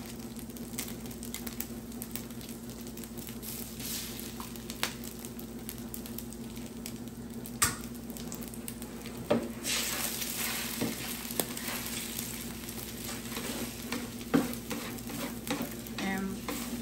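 Food frying on a Blackstone 22-inch E-Series electric griddle, sizzling steadily, with a spatula scraping and tapping on the cooking plate. The sizzle grows louder and brighter about ten seconds in.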